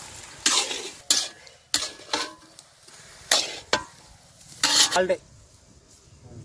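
Long-handled metal spatula scraping and stirring scrambled egg and cabbage in a large iron kadai: rough scrapes at uneven intervals, about one a second, with a couple of sharp clinks of metal on the pan, over a low sizzle of frying.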